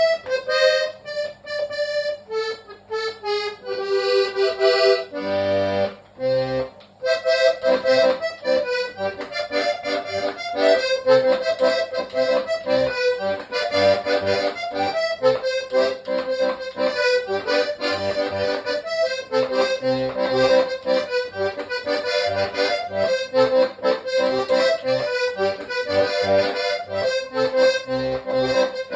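Hohner Trichord three-row diatonic button accordion playing a vallenato-style tune. It opens with a few chords and runs, breaks off briefly about six seconds in, then goes into a fast, continuous melody over a repeating bass.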